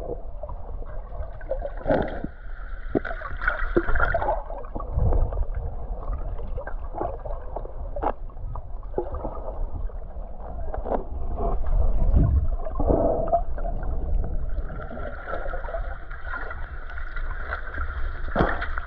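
Muffled gurgling and sloshing of water picked up by a submerged camera as swimmers kick nearby, with scattered sharp clicks and knocks.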